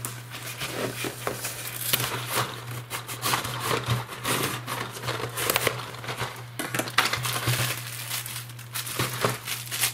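A white cardboard box being cut open with a knife and unpacked, with cardboard scraping and a plastic air-filled packing bag crinkling in irregular crackles and rustles.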